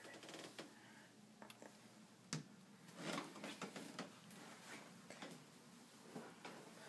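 Quiet small room with a person moving stealthily: scattered small clicks and clothing rustles, with one sharp click about two seconds in.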